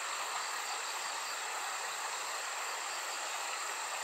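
Insects chirring steadily, a continuous high thin tone with a faint pulsing trill beneath it, over the even rush of a shallow river running over rocks.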